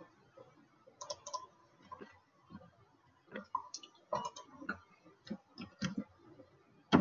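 Computer keyboard and mouse clicks, short sharp clicks coming irregularly in small clusters as code is typed.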